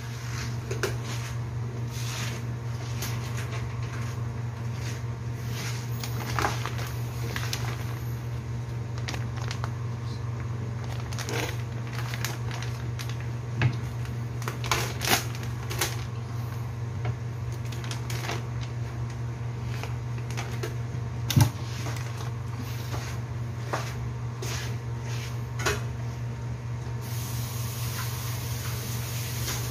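Scattered light clicks, knocks and plastic-packet handling of kitchen food preparation, the sharpest knock about two-thirds of the way through, over a steady low hum.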